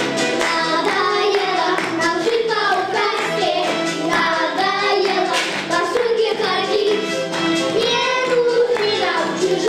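Upbeat song: children's voices singing over backing music with a steady beat.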